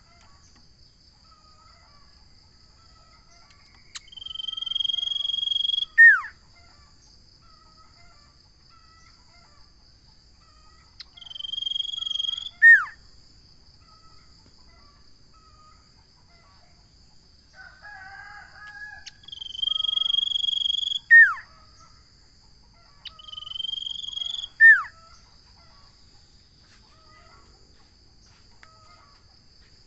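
Common iora (cipoh) singing four times, each song a long held high whistle ending in a sharp falling note, with a short lower chatter once in between. A steady high-pitched buzz runs underneath.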